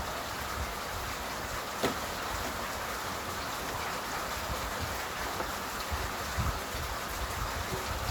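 Steady summer-storm rain, an even hiss, with irregular low rumbling underneath. A single sharp tap about two seconds in.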